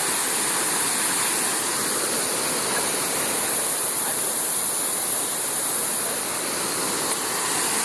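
Waterfall pouring steadily into a pool, a constant loud rush of falling water.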